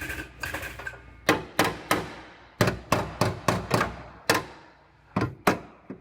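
Hammer blows on car body sheet metal: about eleven sharp, ringing strikes in irregular groups, as the bent floor and bracket are worked back into shape.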